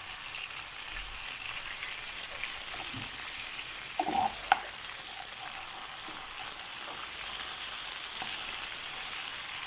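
Grated tomato, garlic and chopped coriander sizzling steadily in olive oil in a tagine on the burner, with one sharp click about four and a half seconds in.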